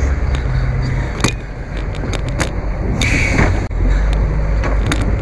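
Livestock truck's engine idling with a steady low hum, with sharp knocks and clanks from the metal cattle trailer and a brief high squeal about three seconds in.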